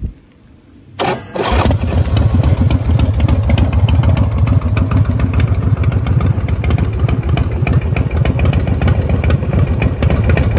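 S&S V-twin engine of a Big Dog Pitbull chopper being started: the starter whirs briefly about a second in, the engine catches half a second later and then runs loud and steady with a fast, even pulse.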